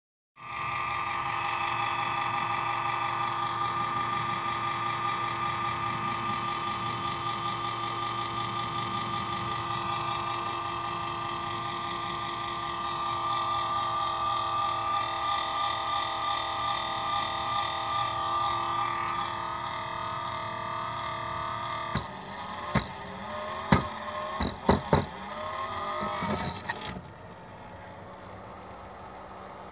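The cooling fan of a 48 V 360 W switching power supply runs with a loud, steady whine made of several wavering tones; the owner says the fan works very badly after one month. Near the end the metal case is knocked and handled a few times, the fan's pitch wavers, and then the noise drops sharply.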